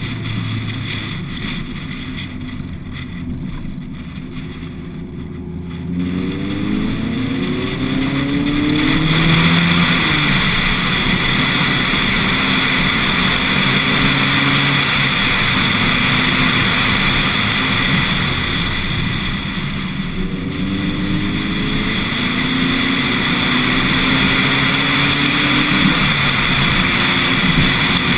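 Lotus Elise S1 111S's Rover K-series four-cylinder engine, running on bioethanol, pulling under load on a climb. Its pitch rises through the revs about six seconds in, eases off around twenty seconds, then climbs again, over steady wind and road noise.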